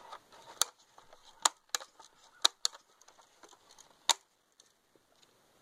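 Sharp, irregular clicks and taps from a Sportsman 900 multi-pump BB air rifle being handled and readied for the next shot, about six of them, the loudest about four seconds in.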